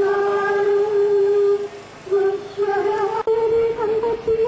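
A voice singing a slow funeral hymn in long, held notes, the tune stepping between a few close pitches with short breaks between phrases.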